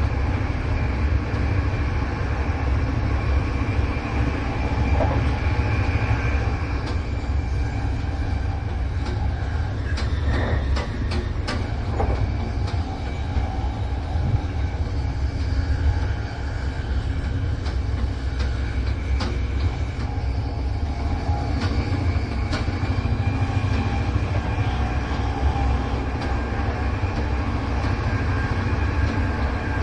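Moving train running on the rails: a steady low rumble, with a quick run of wheel clicks about ten to twelve seconds in.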